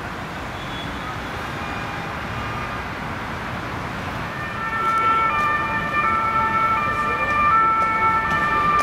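German emergency vehicle's two-tone siren (Martinhorn), switching back and forth between two pitches over city traffic noise. It is faint at first and becomes much louder about halfway through.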